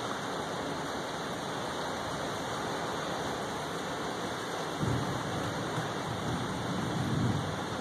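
Steady rain of a severe thunderstorm, with a low rumble of thunder starting about five seconds in.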